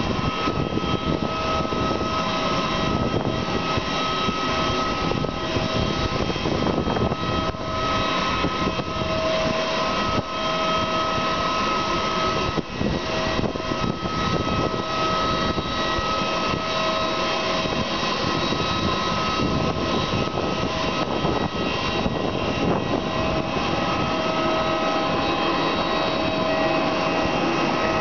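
Parked jet airliner's turbine running: a steady whine with several held high tones over a rushing hiss, with wind buffeting the microphone.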